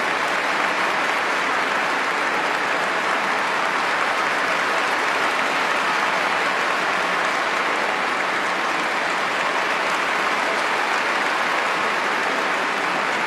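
Large concert-hall audience applauding steadily at the end of a performance, a dense, even clapping with no music.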